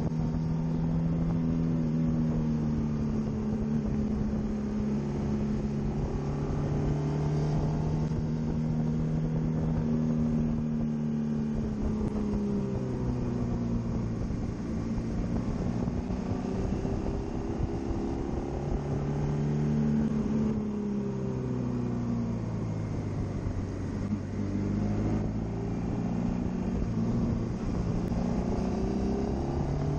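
Honda VFR800X Crossrunner's V4 engine running on the move, heard from the rider's position, with steady wind and road noise. Its note falls and rises a few times as the throttle is eased and opened.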